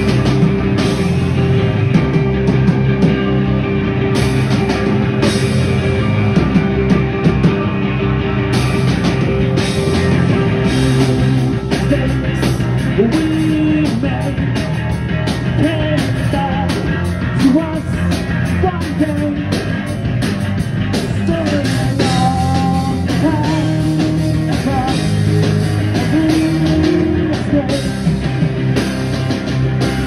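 A live post-hardcore rock band playing loudly: electric guitars, bass and a drum kit, with steady drum hits throughout.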